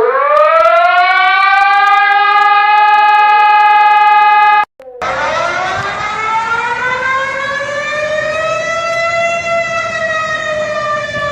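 Civil defense siren winding up to a steady high pitch and holding. It cuts off abruptly about four and a half seconds in. It then winds up again more slowly, peaks near the end and begins to wind down.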